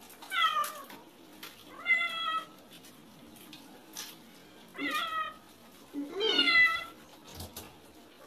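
A wet domestic cat meowing four times while being shampooed, most of the meows falling in pitch.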